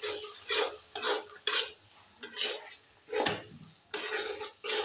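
A spatula stirring and scraping peas through thick, frying masala paste in a steel kadhai, in a series of short, irregular strokes.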